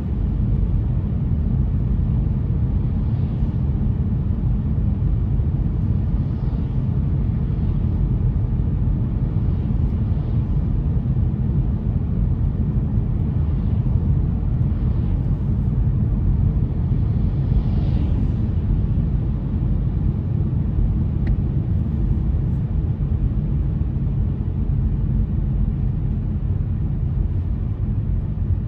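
Steady low rumble of a car on the move, road and engine noise, with a few faint brief hisses over it.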